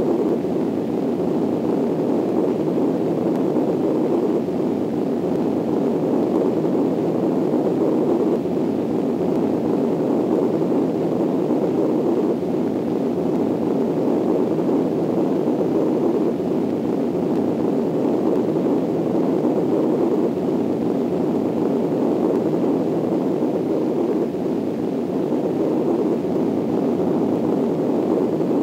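Steady rushing wind noise, a dull, even rumble with no rise or fall, laid on as the sound of a tornado.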